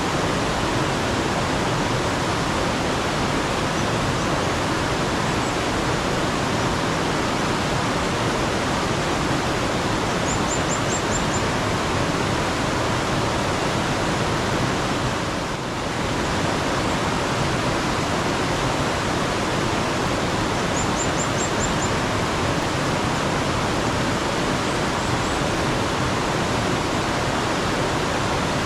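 Steady rush of flowing stream water. Twice, a small bird gives a quick run of four or five high chirps.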